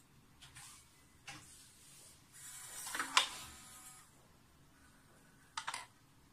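Electronic glass door lock being worked: a couple of sharp clicks, then about three seconds in a brief whir ending in a loud clack as the bolt moves, and a quick double click shortly before the end.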